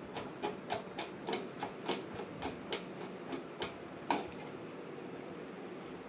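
Short sharp clicks in an even run, about three a second, for about four seconds, the last one the loudest, as a part of a gas stove is being unscrewed.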